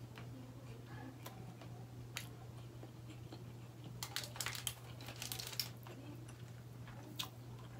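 Fingers tearing at a roast chicken on crinkling aluminium foil: scattered crackles and sharp clicks, densest in a cluster a little past the middle, over a steady low hum.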